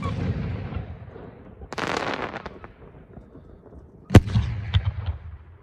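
Aerial firework shells bursting. The rumbling echo of one shell's burst dies away, then there is a stretch of crackling hiss about two seconds in. Another shell goes off with a sharp bang about four seconds in, its boom rolling on with a few smaller pops.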